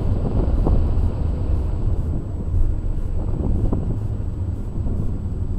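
A car driving on wet streets, heard from inside the cabin: a steady low rumble of engine and road noise.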